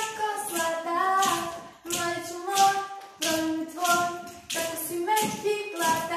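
Group of young voices singing a tune together, with hand claps keeping time about twice a second.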